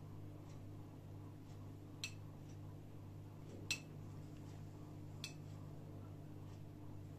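A metal spoon clinking against a bowl as yogurt is scooped out and spooned onto a plate: three sharp clinks about a second and a half apart, with a few fainter taps, over a low steady hum.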